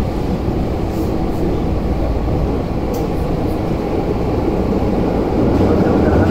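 Tokyu 8500 series electric train running through a subway tunnel, heard from inside the car: a steady, dense rumble of wheels, running gear and motors, growing louder near the end.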